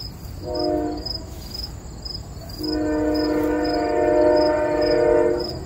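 Train horn sounding one short blast, then a long held blast of several tones together from about two and a half seconds in. Crickets chirp steadily underneath.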